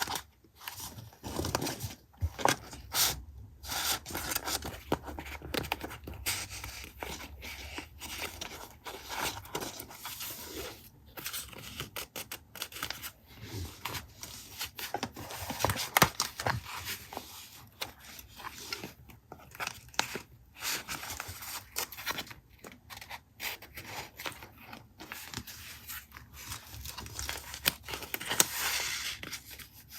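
Paper and craft materials being handled close to the microphone: irregular rustling and scraping, with a sharp tap about halfway through.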